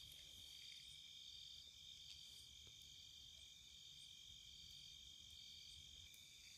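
Crickets chirping faintly in a steady high trill, with a higher chirp pulsing on and off above it.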